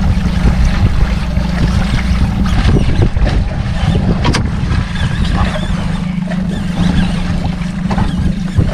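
Wind rumbling on the microphone aboard a small boat at sea, with sea water lapping around the hull.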